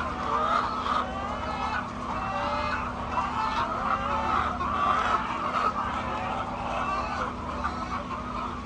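A flock of laying hens clucking and calling at once, many short overlapping calls with no pause, over a steady low hum.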